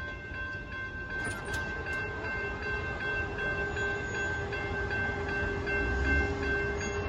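Amtrak passenger train rolling past a road crossing, its rumble swelling from about a second in, while the crossing's warning bell dings steadily about three times a second.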